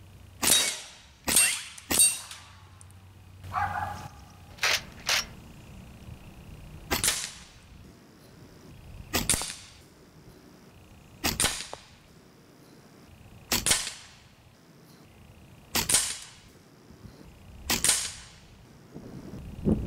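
AEA Precision SF Standard .22 PCP air rifle firing a string of shots in semi-auto, each a sharp crack. The first three come in quick succession, then a few lighter cracks, then one shot about every two seconds.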